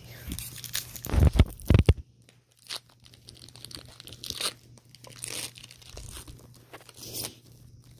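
Foil Pokémon booster pack wrappers crinkling and being torn open by hand. A few loud thumps and rustles come a little after a second in.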